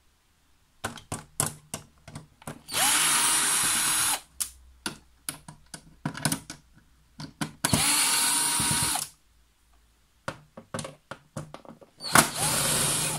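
Power screwdriver backing screws out of a sheet-metal panel: it runs in three bursts of about a second and a half each, every one spinning up to a steady whine. Short clicks and knocks come between the bursts.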